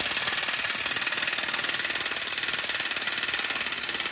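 Impact wrench hammering steadily on a 17 mm bracket bolt to break it loose, then stopping abruptly near the end.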